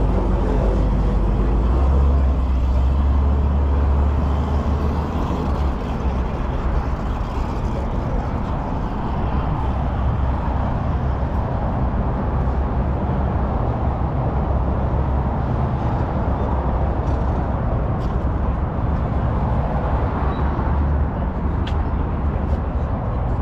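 A car engine running, a steady low rumble, loudest in the first few seconds.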